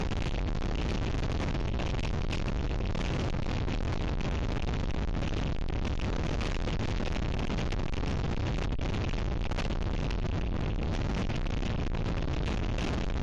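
Gale-force wind blasting across an outdoor webcam microphone: a steady, dense rush of noise, heaviest in the low rumble and flickering with gusts.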